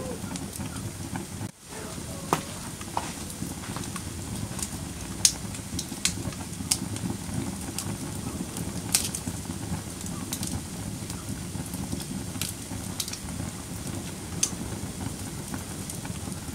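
Wood fire crackling, with a steady low hiss and sharp pops every second or so. There is a brief dropout about a second and a half in.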